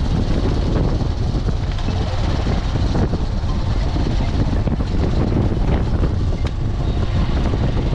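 Steady rush of wind buffeting the microphone, with the drone of a moving vehicle underneath.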